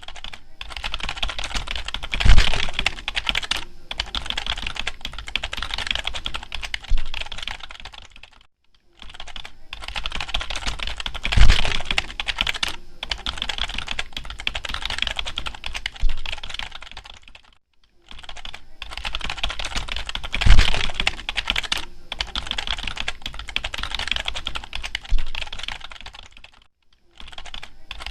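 Fast, continuous typing on a computer keyboard: dense runs of key clicks with a brief pause about every nine seconds, and a single heavier, deeper key strike early in each run. The same run of typing repeats three times.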